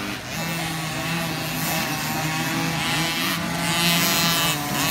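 Several 50cc two-stroke motocross bikes revving around the track, their engine notes rising and falling in pitch as the riders shift and throttle, louder about four seconds in as one bike comes close.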